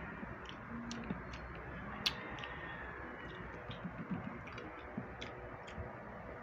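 Eating sounds: irregular small clicks and smacks, two or three a second, as two people eat fried fish and rice by hand, over a steady low room hum.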